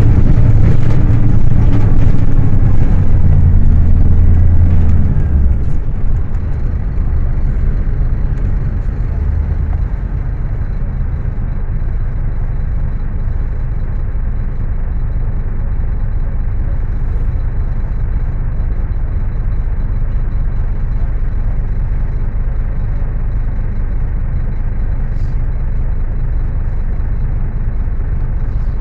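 Scania K310UA bus's diesel engine pulling hard for about five seconds, then easing off and settling to a steady idle.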